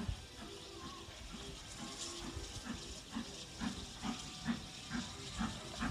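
Steam locomotive working slowly, its exhaust beating evenly at about two chuffs a second over a steady steam hiss, the beats growing louder from about halfway through.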